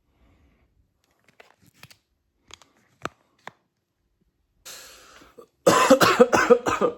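A person coughing hard after a run, in an asthma attack. A rasping breath in comes first, then a rapid fit of loud coughs near the end.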